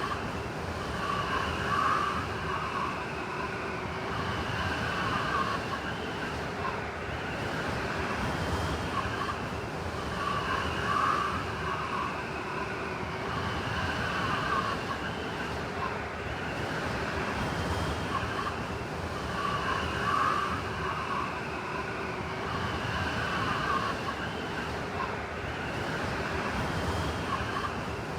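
Blizzard wind howling: a steady rush with a whistling tone that swells and fades in gusts every few seconds.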